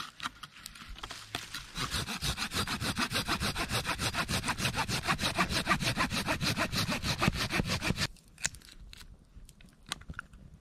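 Hand saw (a folding pruning saw) cutting through a dead conifer branch in quick, regular back-and-forth strokes, starting about two seconds in and stopping abruptly about eight seconds in. Faint crackling of a small wood fire follows.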